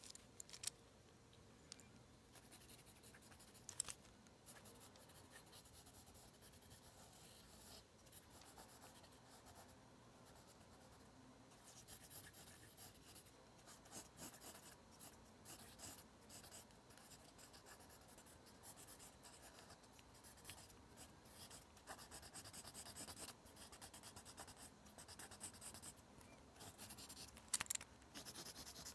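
Mechanical pencil lead scratching faintly across lined notebook paper in short sketching strokes, coming thicker and faster from about halfway through. A few sharp clicks stand out, one near the start, one a few seconds in and one near the end.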